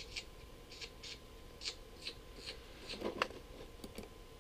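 Faint, light clicks at irregular spacing, about two or three a second, with a brief rustle about three seconds in.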